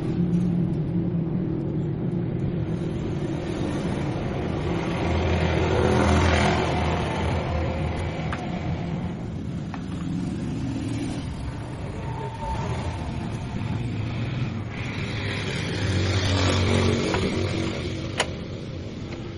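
Motorcycle engine running, revved up twice, about five seconds in and again about sixteen seconds in, then settling back. A sharp click near the end.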